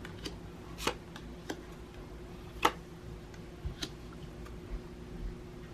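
Quiet, irregular light clicks and taps, about one every half second to second, over a steady low hum.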